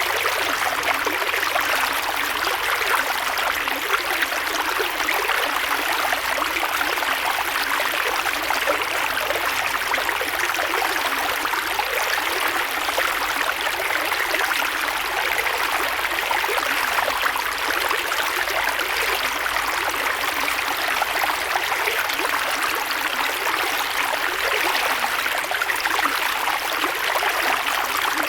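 A creek's water flowing steadily over stones: a continuous babbling rush, strongest in the mid and upper range, with little low rumble.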